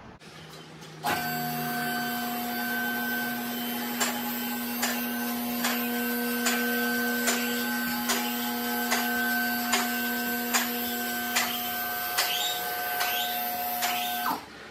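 A small machine running with a steady whine, a sharp click repeating a little more than once a second, and a few short rising chirps near the end; it starts and stops abruptly.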